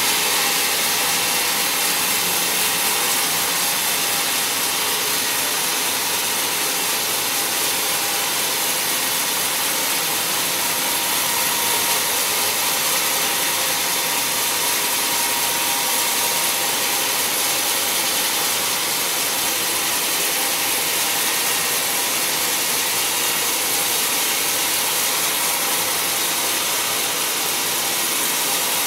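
Sawmill band saw cutting lengthwise through a large wooden block: a steady, high hissing sawing noise from the blade in the wood and the running machine.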